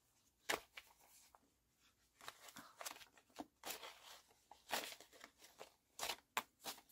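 Paper banknotes being counted and shuffled by hand: faint, irregular short crinkles and flicks of the bills.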